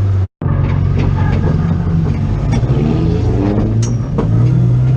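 Car engine running at a fairly steady speed with small rises and falls in pitch, loud throughout. The sound cuts out completely for a split second near the start.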